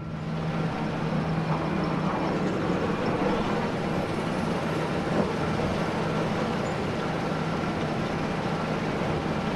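John Deere T670i combine harvester running steadily at work: a continuous mechanical noise with a low, even hum.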